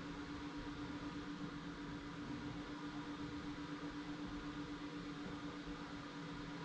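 Coin-operated car wash vacuum running steadily: a constant motor hum over an even rush of suction noise, with no change in pitch or level.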